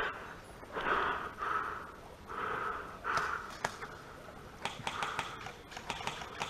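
Heavy breathing close to the microphone, a rhythm of short puffs. In the second half comes a run of sharp clicks and taps.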